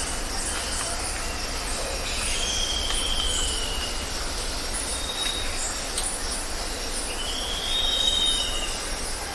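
Birds singing and chirping: two long whistled notes that arch up and then down, about two and seven seconds in, over a steady mix of high chirps.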